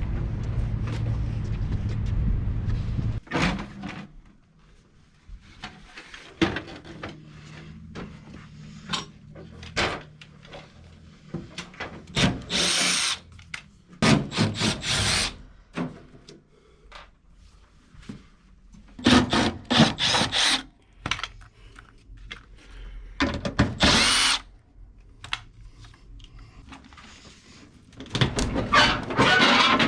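Cordless drill running in several short bursts of a second or two, with clicks and knocks of hand work in between. A steady low drone in the first few seconds cuts off suddenly.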